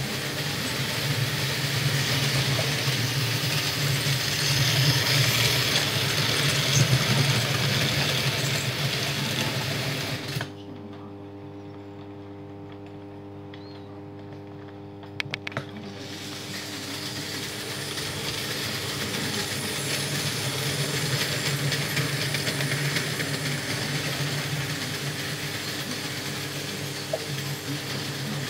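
Märklin model trains running on metal track, a steady rumbling whir of small motors and wheels. About ten seconds in the running stops and only a steady electrical hum is left, a few sharp clicks follow as signals switch, and the trains run up again about sixteen seconds in.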